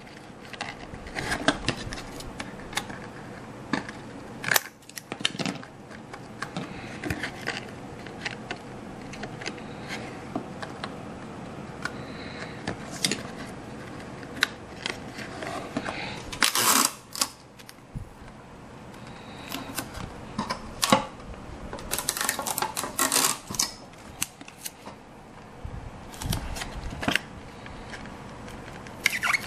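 Hands-on crafting sounds as deck pieces are cut and laid on a handmade model ship: scattered small clicks, taps and rustles, with louder bursts of crackling handling about halfway through and again a few seconds later.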